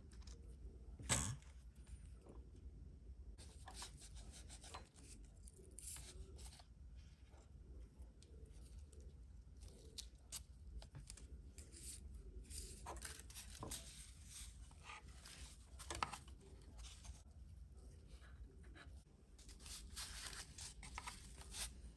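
Faint hand-work noises on small model-kit parts: scattered light clicks, rubbing and scraping, with a sharper click about a second in and another about sixteen seconds in.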